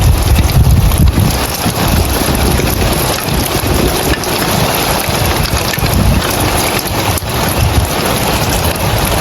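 Rain falling steadily on roof tiles: a dense hiss of drops with fine ticking. Uneven low rumbling gusts of wind buffet the microphone.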